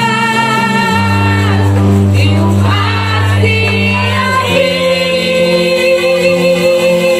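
Live gospel worship song by a church band: a woman's voice holds long notes with vibrato over steady bass and accompaniment, starting a new held phrase about halfway through.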